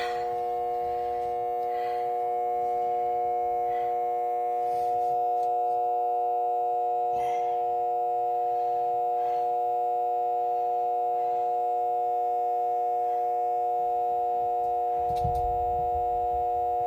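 RV power converter giving off a steady electrical hum, a fixed chord of tones that never changes pitch, and loud enough to be called noisy.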